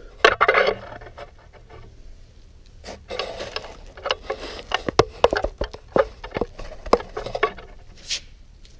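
Irregular sharp metal taps and knocks of hand tools working on a motorcycle part, tapping a bar through to free it. The taps are loudest and most frequent in the second half.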